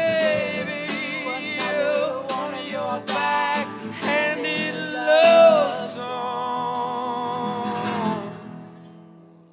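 Music: a song with plucked strings and a singing voice, fading out near the end.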